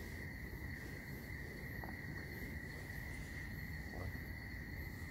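Faint, steady chorus of crickets trilling, over low background noise.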